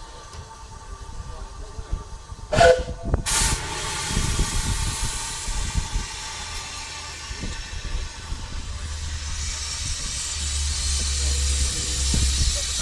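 Double Fairlie narrow-gauge steam locomotive sounding two short whistle toots about two and a half seconds in, then a steady hiss of steam blowing from its open cylinder drain cocks as it starts away, growing louder. A low rumble joins near the end.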